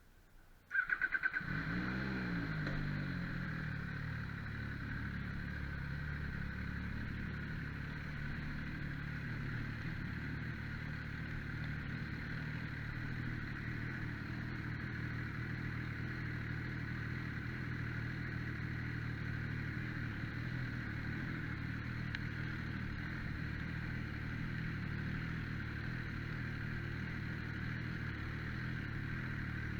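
MV Agusta Brutale 800's three-cylinder engine cranked and started about a second in, the revs flaring briefly and then settling into a steady idle.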